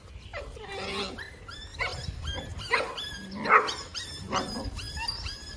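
A dog barking and yipping, with two louder barks a little under a second apart in the middle and many short, high chirping yips around them.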